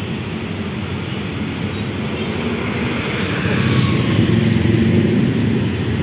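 Motorcycle engine running steadily while riding along a road, with road and traffic noise, getting somewhat louder about halfway through.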